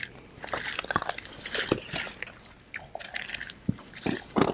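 Close-up wet chewing and biting as people eat bone-in chicken wings straight off their plates with their mouths, pulling meat from the bones: irregular smacks and clicks.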